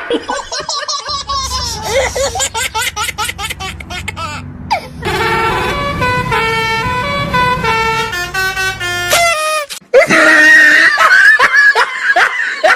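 Bus 'telolet' multi-tone horn playing a quick tune of stepped notes from about five to nine seconds in. Laughter-like gliding sounds come before it and, loudest, just after a short break near the end.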